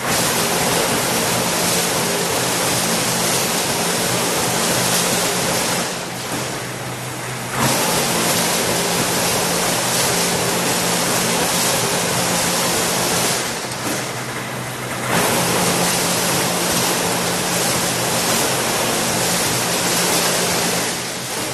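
Veer Advance-812 TMT wire straightening and cutting machine running with a steady, loud rushing noise over a low hum. The sound drops away for a second or two three times, at even spacing of about seven and a half seconds.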